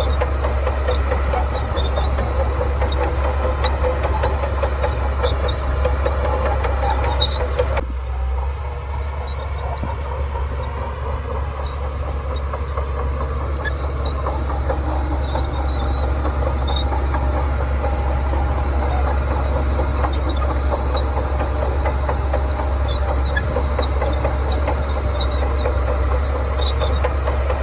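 Shantui DH17C2 bulldozer's diesel engine running under work, a steady low drone with scattered light clicks. About eight seconds in the sound thins out suddenly, then builds back up over the following seconds.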